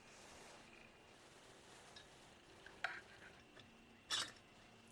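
A few light metallic clicks and taps from engine parts being handled as a motorized-bike engine's cylinder head is taken off, the two clearest about three and four seconds in, over faint room noise.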